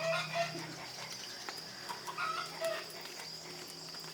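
Rural farmyard sound: a few short calls from farm animals over a steady high-pitched insect drone.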